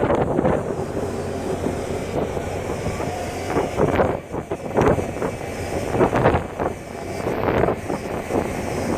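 Strong gale wind buffeting the microphone aboard a ship, in irregular gusts over a steady low hum.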